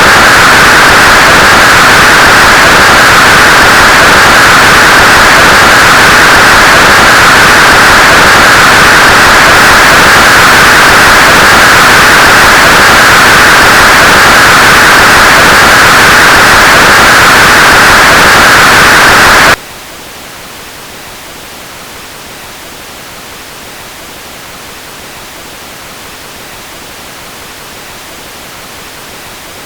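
Synthesized white noise from Csound passed through a resonant filter centred near 1500 Hz: a loud hiss with a pronounced band around 1.5 kHz. About twenty seconds in it cuts abruptly to a much quieter, more even hiss as the next filter setting takes over.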